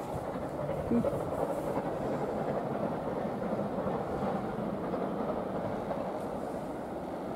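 Steam train running out of sight: a steady, even noise with no clear beat.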